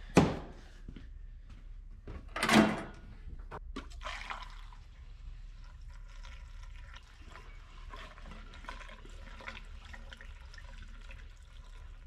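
Gasoline pouring steadily from a plastic gas can's spout into a car's fuel filler neck. A sharp click comes just after the start, and a brief louder noise about two and a half seconds in.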